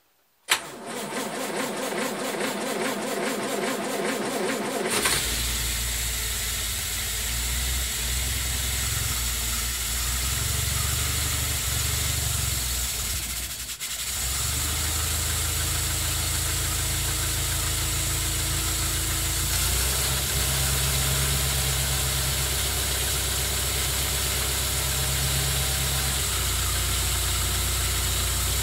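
A 1931 Standard Big Nine's side-valve four-cylinder engine turns over for about four and a half seconds, catches and settles into a steady idle. Its tappet clearances have just been reset, which cures the rattle it had.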